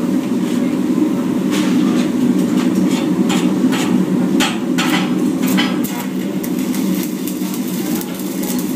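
Stick welding arc crackling and popping irregularly over a steady low hum.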